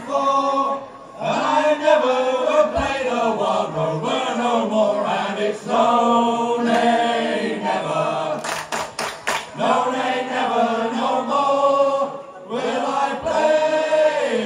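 A group of voices singing a sea shanty together in chorus, with a quick run of sharp clicks about two-thirds of the way through.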